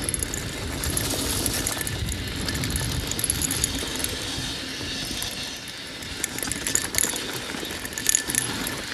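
Mountain bike riding down dirt singletrack: tyres rolling over dirt and rocks under a steady rumble, with the bike's chain and parts rattling and sharp clicks, most of them near the end.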